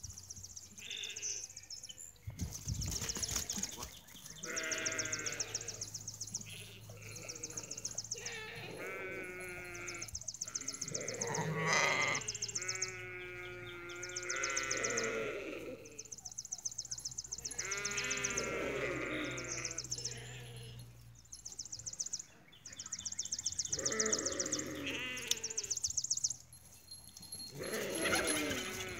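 Bleating farm animals calling again and again: about ten quavering calls, each a second or two long and at differing pitches. A high, rapidly pulsing chirr runs steadily behind them.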